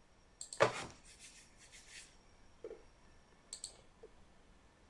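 A few computer mouse clicks: the loudest under a second in, then a quick double click about three and a half seconds in, over quiet room tone.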